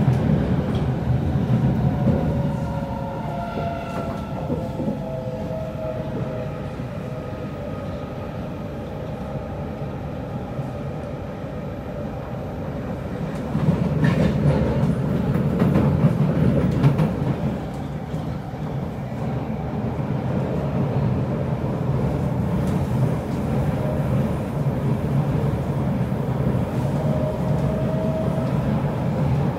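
Kawasaki C751B metro train heard from inside the carriage while running: the motor whine falls in pitch over the first several seconds, and the wheels rumble on the track throughout. The rumble grows louder for a few seconds about halfway through, and a short rising whine comes near the end.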